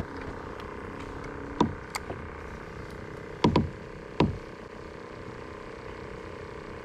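Fishing rod and reel being handled and cast aboard a kayak: a few short, sharp clicks and knocks, with a close pair in the middle, over a steady low hum.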